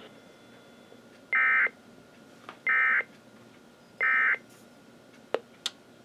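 A Sage EAS ENDEC sending the EAS end-of-message code: three short, loud bursts of warbling digital data tones about 1.3 s apart, marking the end of the alert. Two sharp clicks follow near the end.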